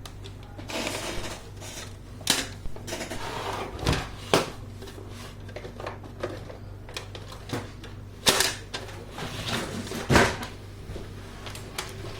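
Plastic parts of an HP LaserJet Pro M104w laser printer being handled, with sharp clicks, knocks and rattles scattered through, the loudest a little after two seconds, about four seconds in, about eight seconds in and about ten seconds in. The sounds fit its separation pad being fitted back in by hand. A low hum runs underneath throughout.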